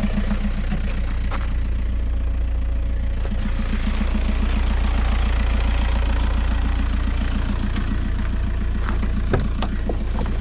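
Volkswagen Caddy van's engine idling steadily: an even low hum with a fast regular pulse. A few sharp clicks come near the end.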